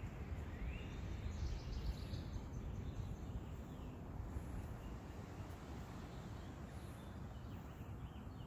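Outdoor ambience: a steady low wind rumble with a few faint bird chirps in the first couple of seconds.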